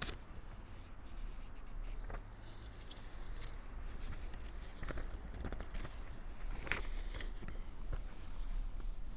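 Faint handling sounds: scattered soft rustles and a few light clicks over a low steady hum, the clearest about five and seven seconds in.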